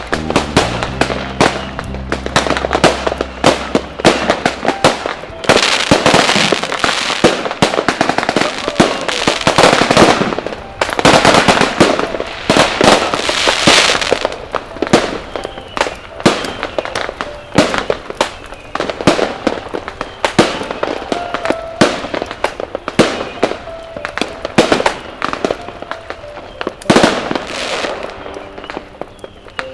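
Fireworks and firecrackers going off in rapid, irregular bangs and crackles. They are densest in the middle stretch, with a single loud bang near the end.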